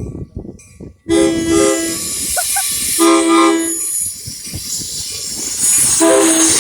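Metra locomotive 401's air horn sounding a chord in a series of blasts as the train passes close by: two short blasts about a second in, a longer one about three seconds in, and another near the end. Rushing and clatter of the passing train run beneath the horn.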